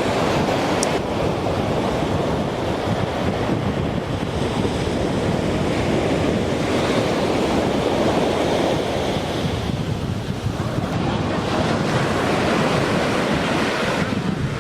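Ocean surf breaking and washing on a sandy beach, a steady rush that swells and eases over several seconds, with wind buffeting the microphone.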